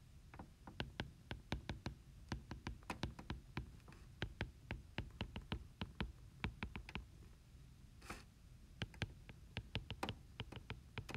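Stylus tapping and clicking on a tablet screen during handwriting: faint, sharp, irregular taps, several a second, with a short lull about two-thirds through.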